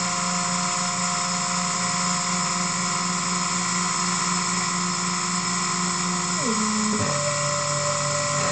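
EMCO F1 CNC milling machine facing aluminium: the spindle and end mill run steadily with a high hiss and whine while the axis feed drives add lower whining tones. These drop in pitch about six and a half seconds in and shift to a new set of tones at about seven seconds, as the feed changes.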